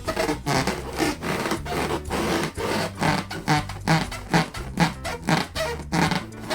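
Latex balloons being rubbed and squeezed: a quick, irregular run of short squeaky rubbing strokes.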